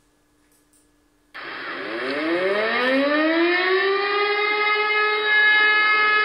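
Motor-driven fire alarm siren spinning up: after about a second of near silence it starts suddenly, rises in pitch over about two and a half seconds, then holds one steady wailing tone.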